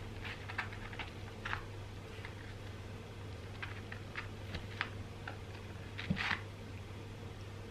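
Metal fork breaking into crisp battered fish in a cardboard takeaway box: short crackly crunches and clicks in three clusters, the loudest about six seconds in, over a steady low hum.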